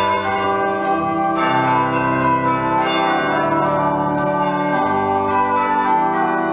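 Church bells ringing as a continuing peal, several bells sounding and overlapping, the pattern of notes shifting every second or two.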